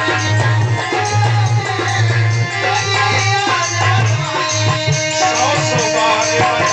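Loud music with drums and a melody over a heavy, steady deep bass.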